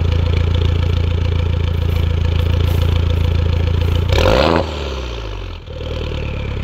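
Exhaust of a 2013 Mini Cooper S's turbocharged 1.6-litre four-cylinder, idling steadily and then blipped once about four seconds in: the revs jump briefly, fall away, dip for a moment and settle back to idle.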